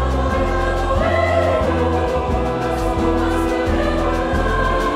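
Mixed-voice choir singing a boi-bumbá toada, with held chords and a voice line rising about a second in, over a steady low accompaniment and a quick, even percussive beat.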